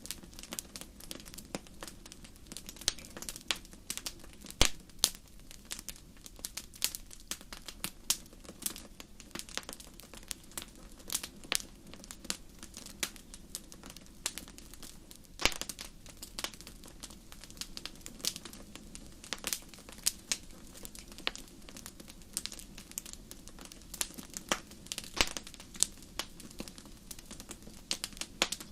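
Wood fire crackling steadily, with irregular sharp pops and snaps over a low hiss of burning; one louder pop about halfway through.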